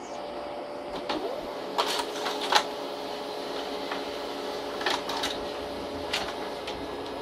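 Small desktop laser printer starting up and running through a print job: a steady mechanical hum with several sharp clicks from its paper feed along the way.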